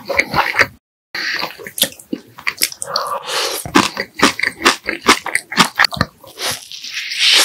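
Close-miked eating of pork back ribs: a person biting and chewing meat, with wet mouth clicks and smacks. The sound cuts to dead silence briefly about a second in.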